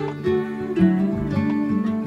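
Background music led by a plucked string instrument, with notes plucked over steady held tones.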